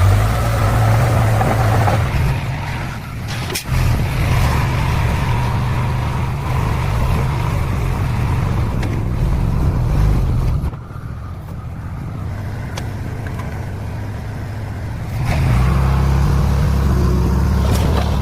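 Heavy diesel engines of trucks and a bulldozer running with a steady low rumble. The rumble drops quieter about eleven seconds in and comes back louder about fifteen seconds in.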